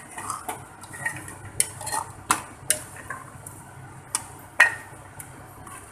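A steel spoon stirring mutton and thick masala in a metal pot, scraping through the food with irregular clinks and knocks against the sides, the loudest about four and a half seconds in.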